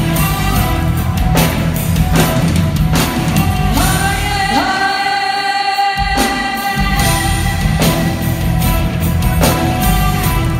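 Live Greek pop music: a band with bouzouki, violin and keyboard, drums and bass, with a woman singing. About halfway through, the drums and bass drop out while she holds one long high note, then the beat comes back in.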